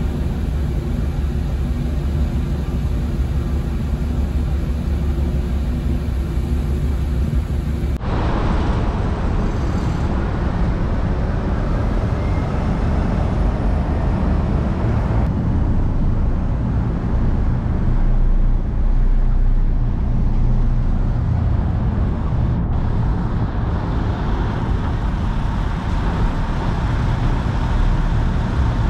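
Steady low drone of the ferry's engines and machinery with a constant hum. After about eight seconds it changes to a noisier wash of lorries and cars running and moving around a ferry terminal.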